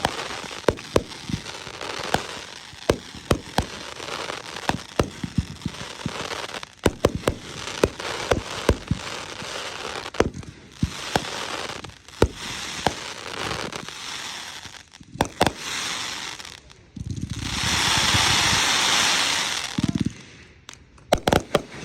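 Consumer fireworks going off: a rapid, irregular run of sharp bangs over a crackling background. From about 17 to 20 seconds in a loud steady hiss takes over, then a few last bangs come near the end.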